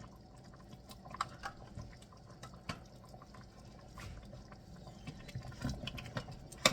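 Faint wet, liquid sounds from a pot of thick chicken curry gravy as tomato paste is added, with scattered light clicks.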